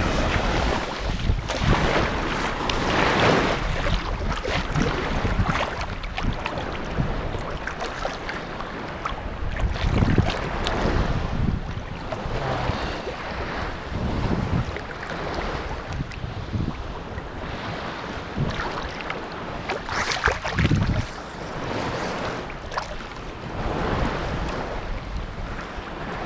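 Sea waves washing onto the shore in repeated surges, with wind buffeting the microphone.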